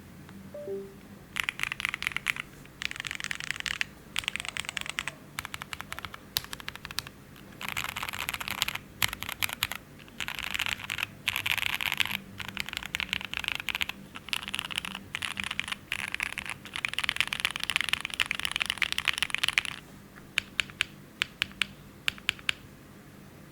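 KBDfans Taco75 mechanical keyboard with MX2A Black linear switches, GMK Olive keycaps and an aluminium plate, typed on fast in bursts of clattering keystrokes with short pauses between them. Near the end it changes to single keys struck one at a time, a couple a second.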